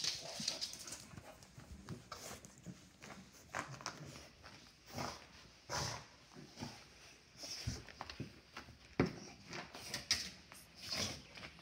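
Wet dog rolling and rubbing itself on a rug after a bath, drying its fur and ears: irregular scuffing and rustling, with a couple of sharper thumps about eight and nine seconds in.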